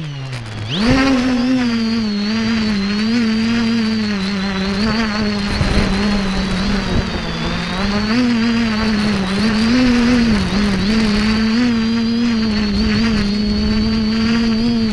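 X550AIOP quadcopter's electric motors and propellers whining in flight, with wind rumble on the microphone. The pitch drops sharply right at the start as the throttle comes off, climbs back within about a second, then wavers up and down with throttle changes.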